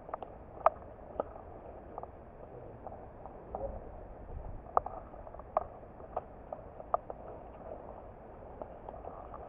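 Single shots from airsoft guns: a dozen or so sharp pops scattered irregularly, a few of them much louder than the rest.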